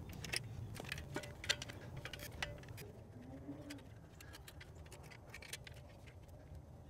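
Faint clicks and light metallic ticks of gloved hands bending and tucking stiff insulated wires into a metal AC disconnect box. They are busiest in the first three seconds, then sparser, over a low steady background rumble.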